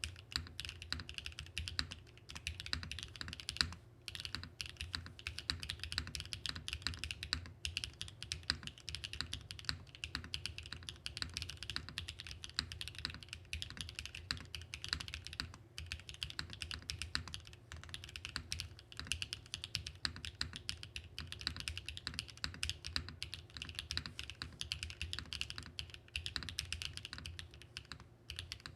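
Continuous fast typing on a Mode65 mechanical keyboard with BSUN Bunny linear switches, a dense run of keystroke clacks broken by a few brief pauses. The switches give a bright sound with a deep, mid-toned bottom-out and a very quiet upstroke.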